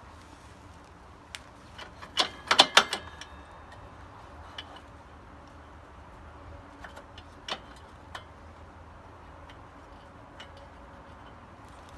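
Metal parts clinking and knocking as the rear-wheel spacers and axle are handled and fitted: a cluster of sharp clinks about two to three seconds in, then a few scattered light taps.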